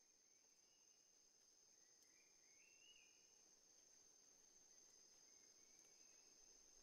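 Near silence, with a faint, steady high-pitched insect chorus like crickets trilling, and a few faint chirps that step up in pitch near the middle.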